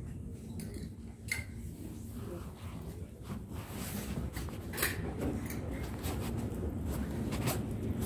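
Clothing-store background noise: a steady low hum with scattered clicks and rustling as garments on hangers brush past.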